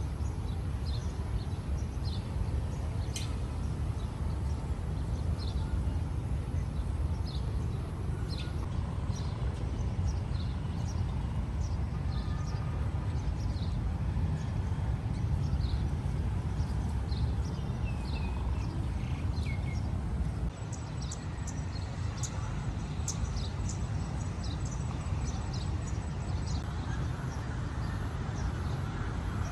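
Outdoor city ambience: a steady low rumble of traffic and wind, with short high chirps repeating about once a second.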